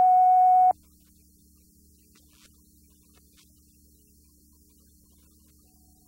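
A loud steady electronic test tone cuts off abruptly less than a second in. After it there is only a faint steady hum with a few faint clicks.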